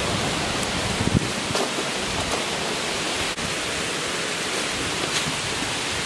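Steady rush of a rocky mountain stream's water, with a few faint knocks.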